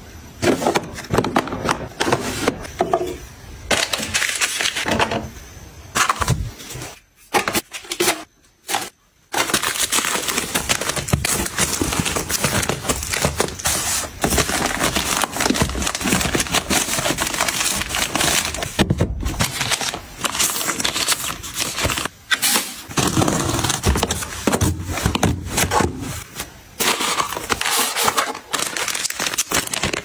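Plastic wrappers and snack packets crinkling and rustling as they are handled and packed into plastic storage bins, with many irregular clicks and taps, and a few short quiet gaps.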